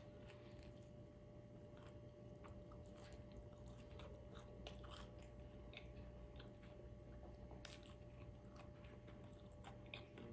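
A person chewing food close to the microphone: faint, irregular mouth clicks and bites, with a faint steady hum underneath.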